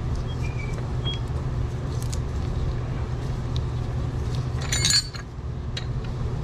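Hand tools clinking against the engine-mount bolts and bracket as the mount is bolted in. There are a few light clicks, then a louder ringing metal clink about five seconds in, over a steady low hum.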